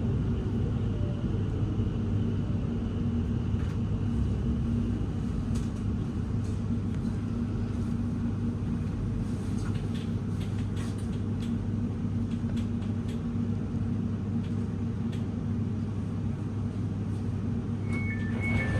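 Inside a Class 701 electric train carriage: a steady low rumble with a constant electrical hum and a few light clicks. Near the end an alternating two-note door beep starts.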